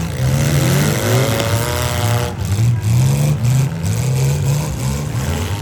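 Demolition derby cars' six-cylinder engines revving, one engine note climbing in pitch over the first two seconds.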